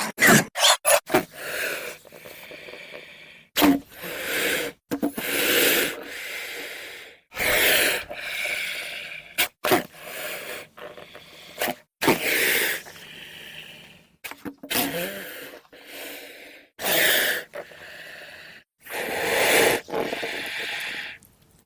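Made-up creature vocalizations built from layered animal and monster sound effects: a run of separate hissing calls, each about a second or two long, with short sharp clicks between them.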